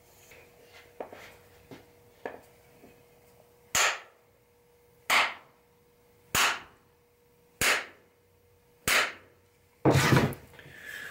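Homemade wooden mallet striking the end of a new hickory handle to drive it into a ball peen hammer head: five sharp wooden knocks about one every second and a quarter, then a louder knock near the end.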